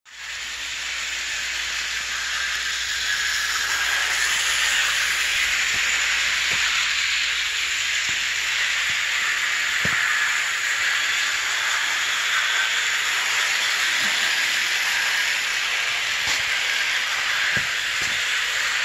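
1937 Scalecraft OO gauge electric toy train running on its original metal sectional track: a steady hissing whir of motor and wheels that builds over the first few seconds, with a few faint clicks.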